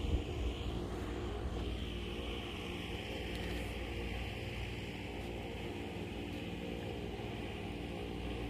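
A motor running steadily with an even hum, under a constant hiss, and one short knock right at the start.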